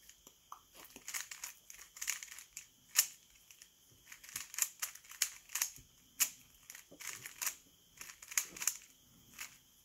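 Stickerless 3x3 speed cube turned quickly by hand during a timed speed solve: irregular plastic clicks and rasps of the layers turning, several a second, with one sharper click about three seconds in.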